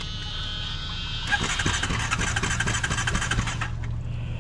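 An engine running for a little over two seconds, starting about a second in and cutting off shortly before the end.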